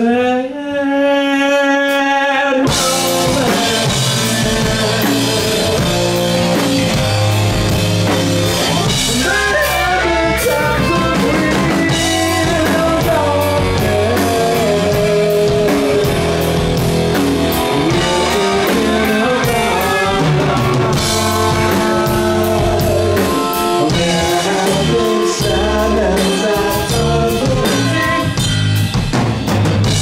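Live rock band playing a song with a man singing into a microphone over drum kit and guitar. A long held note opens it alone, and the drums and full band come in about two and a half seconds in.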